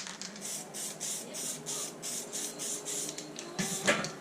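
Aerosol can of weld-through zinc primer spraying in short hissing bursts, about three a second, with a louder knock near the end.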